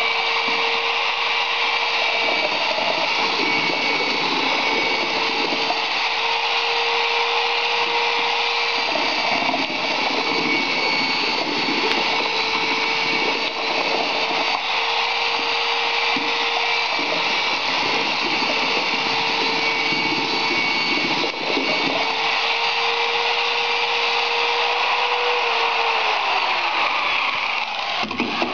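Corded electric drill with a mixing rod running steadily at a constant speed, churning wet render in a plastic bucket. Near the end the motor winds down as the trigger is released.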